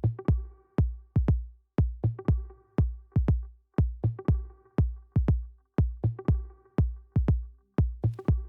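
Electronic intro music with a steady drum-machine beat: deep kicks that drop in pitch, about two a second, over a few sustained tones.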